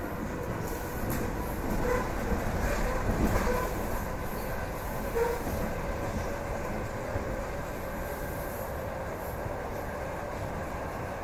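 EP2D electric train running along the track: a steady rumble with a few wheel knocks and clatter, loudest between about two and five seconds in.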